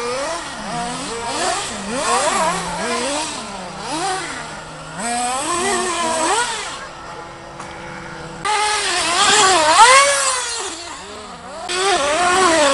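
Radio-controlled model car's motor revving up and down in quick bursts, four times, with a steadier lower tone in the pause between bursts; the loudest burst comes about ten seconds in.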